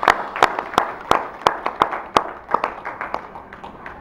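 Hand clapping from a few people, about three claps a second, thinning and fading toward the end: applause for a break just completed.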